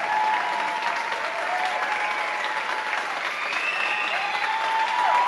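Audience applauding steadily, with drawn-out cheering calls rising and falling above the clapping.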